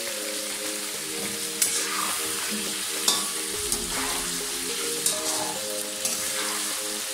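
Chicken pieces deep-frying in hot oil in a karahi, a steady sizzle, with a metal spatula stirring them and knocking sharply against the pan several times. Background music plays underneath.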